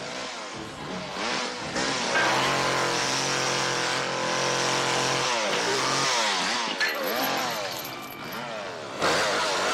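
Chainsaw engine revving. It holds a steady high pitch for a few seconds, then its pitch swoops down and up several times as the throttle is worked.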